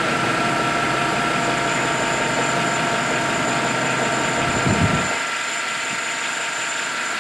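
2013 GMC Sierra's 5.3-litre V8 idling steadily. The deep low part of its sound drops away about five seconds in. The engine has a slight intermittent misfire-like stumble on cylinder 1 that sets no trouble codes.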